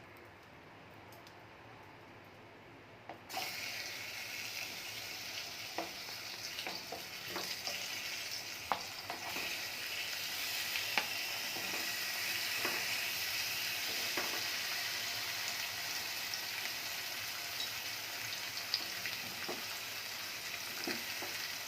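Pineapple pieces frying on a hot tawa: a steady sizzle that starts suddenly about three seconds in, with scattered light clicks and scrapes from stirring.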